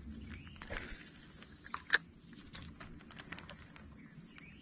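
Scattered light clicks and rustling, with one sharper click about two seconds in, over faint steady high-pitched tones.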